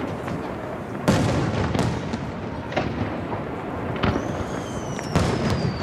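Aerial firework shells bursting over the sea, about five sharp booms with echoing tails from the surrounding mountains, the strongest about a second in. A high whistle from a whistling shell begins about four seconds in and slowly falls in pitch.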